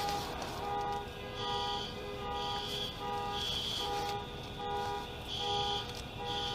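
Car alarm horns honking in a steady repeating pulse, about once a second, set off by the bomb blast.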